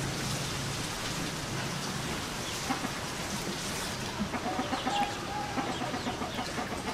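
Chickens clucking, with one drawn-out hen call a little past the middle, over a steady hiss.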